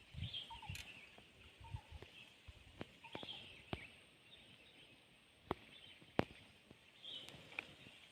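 Faint outdoor ambience with scattered short, high bird chirps. Several sharp clicks and a few low thuds come through, the loudest clicks past the middle.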